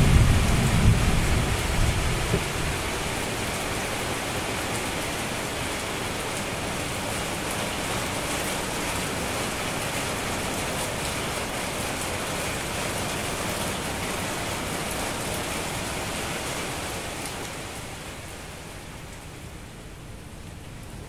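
Steady rain with a low rumble of thunder over the first two seconds or so; the rain grows quieter near the end.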